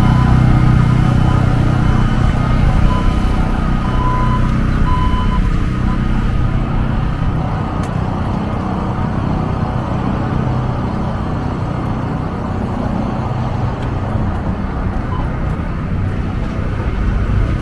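City street traffic with a vehicle engine's low, steady hum, loudest at first and easing off over the following seconds. A few short, high beeps sound in the first five seconds.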